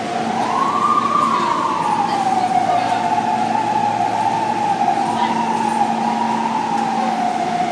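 Emergency vehicle siren wailing, its pitch sliding slowly up and down and highest about a second in, over a steady low hum.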